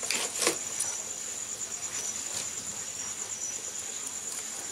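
Crickets chirping steadily in a continuous high trill, with a few short pops from the crackling wood fire.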